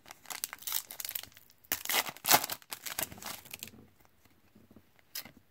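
Foil wrapper of a 2014 Panini Prizm football card pack being torn open and crinkled, a run of sharp crackles over the first three and a half seconds, then a single soft click near the end.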